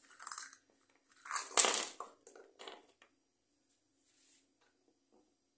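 Hands handling and fitting plastic fan parts: a few short scraping and rattling noises, the loudest about a second and a half in.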